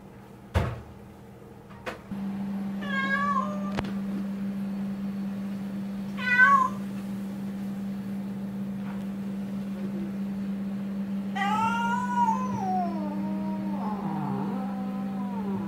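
Domestic cat meowing: two short meows about three seconds apart, then a longer, drawn-out meow near the end. A single knock sounds about half a second in, and a steady low hum runs underneath from about two seconds on.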